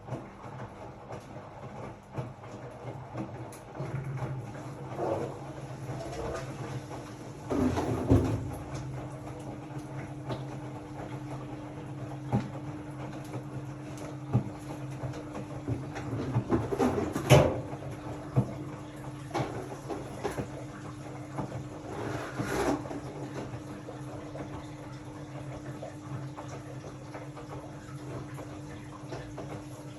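Hotpoint-Ariston RSG 825 J washing machine running a wash: a steady motor hum under water swishing and the laundry knocking in the turning drum, with louder surges about 8 and 17 seconds in.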